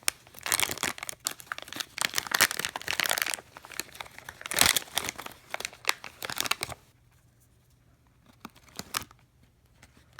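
Cardboard blind box and foil bag being torn open and crinkled by hand, dense crackling for about seven seconds, then a few light clicks as the figure is handled.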